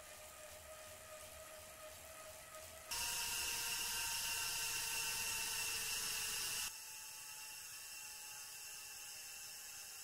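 2017 Wahoo Kickr direct-drive smart trainer spinning under a pedalling rider at about 13 mph in the big ring and middle cog: a steady whine from the trainer over the whir of the chain and drivetrain. The sound jumps louder about three seconds in and drops again near seven seconds, as the rider stops pedalling and coasts.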